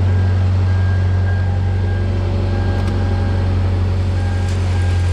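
An engine running at a steady idle, an even low hum with no change in speed.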